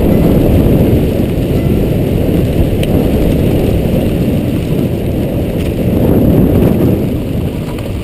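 Loud, steady wind rush buffeting a body-worn action camera's microphone as a skier runs downhill at speed.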